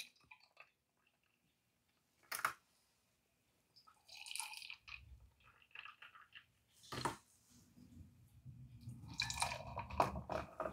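Half-and-half and yogurt mixture pouring from a mixing bowl into small ceramic jars, a faint liquid pouring sound, with a couple of sharp knocks.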